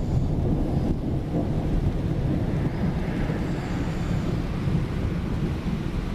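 Thunder rumbling low and steady, with no sharp crack.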